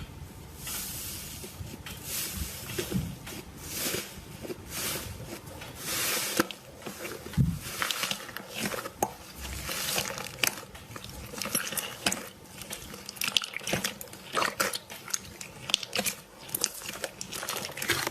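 Slime being squeezed and worked by hand: a continuous run of wet clicks, pops and squelches.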